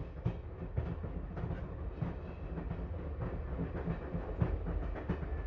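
Moving passenger train heard from inside a sleeping-car compartment: a steady low rumble with irregular clicks and knocks of the wheels over rail joints.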